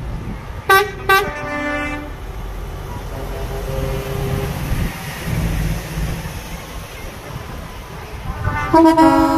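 Truck air horns: two short blasts about a second in, then a longer, louder blast near the end, over the steady low rumble of passing truck engines.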